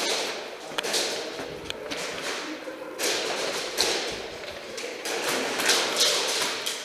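Repeated rustling swishes, each swelling and fading over about half a second, with a few sharp clicks between them.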